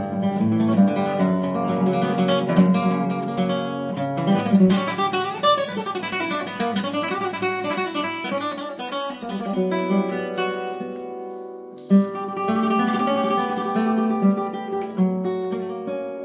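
Solo nylon-string classical guitar playing a flamenco piece in fast, dense runs of plucked notes. After a brief quieter moment, a sharp accented chord lands about twelve seconds in.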